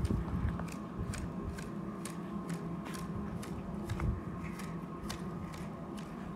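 Long-handled hedge shears snipping through a bush's leafy stems in a steady rhythm of about two crisp snips a second.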